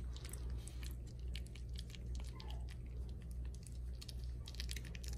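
Soft wet clicks and smacks of a 3.5-week-old Cavapoo puppy mouthing and sucking on a person's fingers, with a faint brief squeak about two and a half seconds in.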